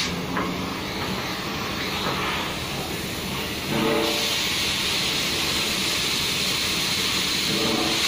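Oxy-fuel cutting torch hissing steadily as its jet cuts through a steel plate, growing louder about four seconds in.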